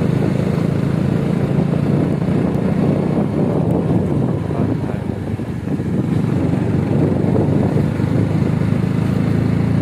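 Small 90cc motorcycle engine running steadily under way, a low drone with road noise, easing briefly about five seconds in.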